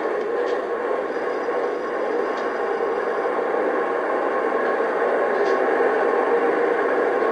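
Lionel Legacy RailSounds diesel engine sound of a pair of model GE AC6000CW locomotives, a steady engine drone with a light hiss coming from the stationary models' speakers.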